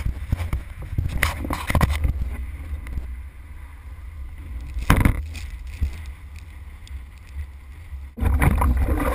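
Wind buffeting an action camera's microphone, with a few knocks as the camera is handled. Near the end it cuts suddenly to louder rushing water and wind as a kiteboard skims through the sea.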